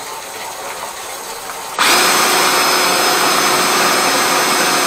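Electric drain-cleaning machine running, its motor spinning the cable inside a grease-clogged kitchen sink drain. It comes on loud and steady about two seconds in, over a quieter steady noise before it.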